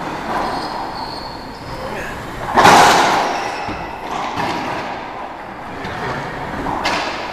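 Racquetball rally: the hard rubber ball cracking off racquets and the court walls, each hit echoing around the enclosed court, the loudest about two and a half seconds in and several lighter ones spread through.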